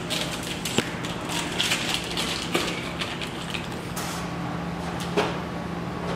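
Food and packaging being handled on a kitchen counter: rustling with a few light knocks, over a steady low hum.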